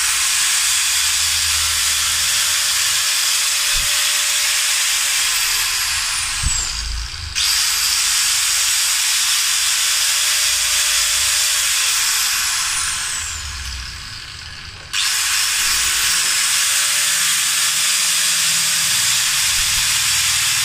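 Total 1010 W, 125 mm angle grinder running free with no disc fitted: a loud high whine with hiss. It is switched on three times with its paddle switch. Each time it runs at speed for several seconds, then spins down with a falling pitch when the paddle is released, before the next squeeze.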